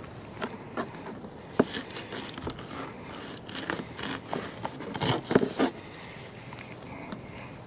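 Fillet knife cutting and scraping a kelp greenling fillet away from its skin on a plastic cooler lid: irregular soft scrapes and small clicks, loudest about five seconds in.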